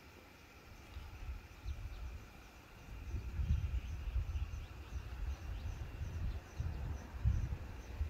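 Wind buffeting the microphone in gusts, picking up about three seconds in after a quieter start, with faint, evenly repeated high chirping behind it.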